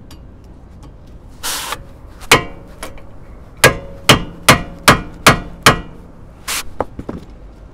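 Hammer striking a hand impact driver seated in a stuck brake rotor retaining screw to shock it loose. There is one blow, then a run of six quick metal-on-metal blows about two and a half a second, each ringing briefly, then a few lighter taps.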